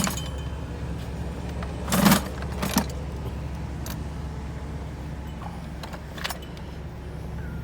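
Metal hand tools clinking and clattering in short bursts as they are handled in a bucket, over the steady hum of a vehicle engine idling.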